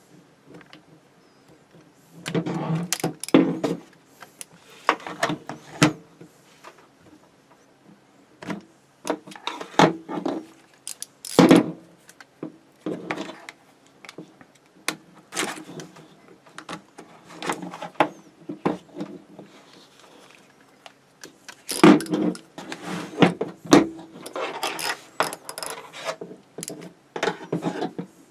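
Hard plastic blister packaging around a ratchet crackling and clattering in irregular bursts as it is cut and pried open.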